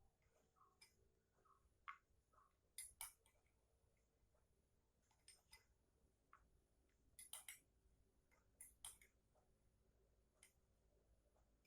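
Near silence broken by faint, irregular light clicks and taps, some in quick pairs: small kitchen handling of a cut lime, knife and glass.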